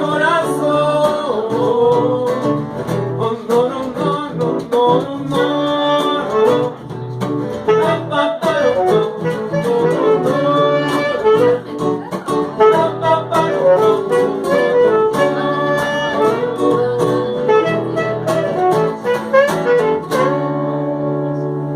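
Band playing an instrumental passage: a gliding lead melody over a steady accompaniment, settling on a long held chord near the end.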